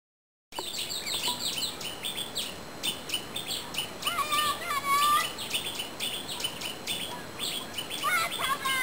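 Birds chirping densely and continuously, starting abruptly about half a second in, with a lower, wavering call rising and falling twice, about four seconds in and near the end.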